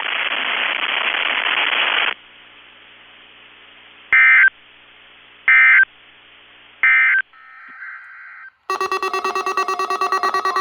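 Radio static hiss for about two seconds, then three short, loud squawks of NOAA Weather Radio SAME digital code, a little over a second apart. About three-quarters of the way in, a loud buzzing alert tone starts, pulsing rapidly.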